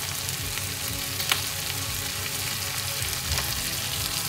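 Chopped vegetables sizzling steadily as they fry in a non-stick pan, stirred with a slotted spatula. There is a sharp tap about a second in and a lighter one near the end.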